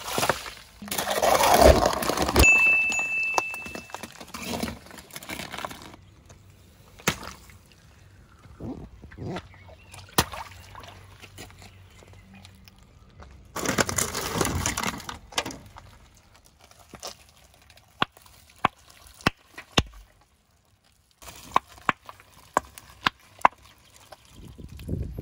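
A water balloon full of orbeez bursting under a car tyre, with a loud splash of water. A second splash comes about halfway through, then a run of separate sharp pops and clicks.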